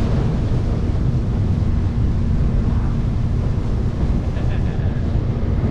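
Heavy wind buffeting the camera microphone on a moving boat, with the boat's motor running steadily underneath.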